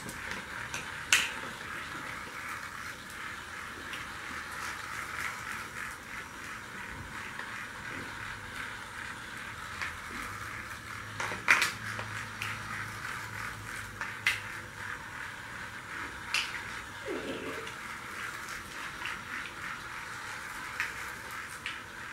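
Toy train running along its track: a steady whirring rattle with scattered sharp clicks, the loudest a little past halfway.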